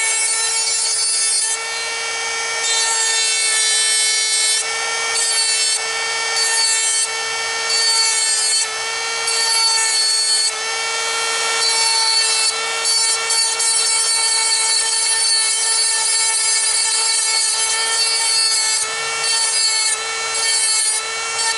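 Dremel rotary tool running at a steady high-pitched whine while its bit grinds down the rear of a magazine follower. The grinding rasp comes and goes every second or two as the bit is worked against the part.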